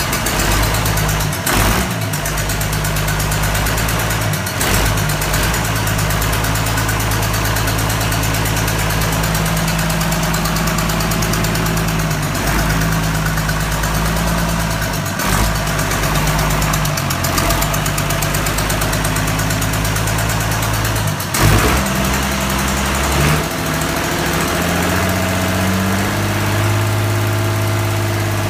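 Ex-combine-harvester six-cylinder Ford diesel engine running on a stand, mostly at a steady idle. The engine speed shifts a few times, and the revs climb near the end.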